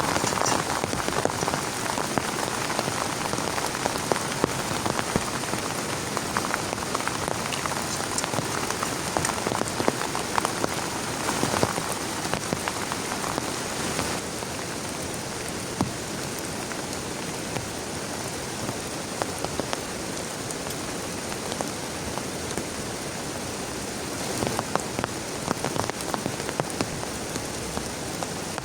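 Heavy rain falling, with many individual drops striking close by. It eases a little about halfway through.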